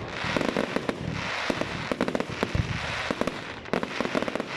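Fireworks going off in quick succession: dense crackling and popping over a hiss, with a deeper bang about halfway through.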